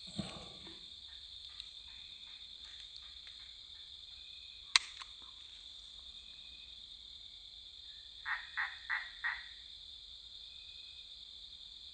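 A frog gives a quick run of four croaks, about eight seconds in, over a steady high-pitched drone of insects. A single sharp click comes about five seconds in, and a short low rustle at the very start.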